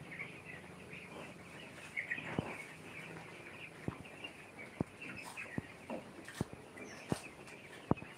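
A large flock of young broiler chicks peeping continuously in a dense chorus, with scattered sharp clicks about once a second.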